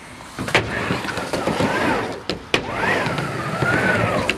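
Wheels rolling on a skate ramp, a hum that rises and falls in pitch as the rider swings up and down the transitions, with a few sharp clacks against the ramp.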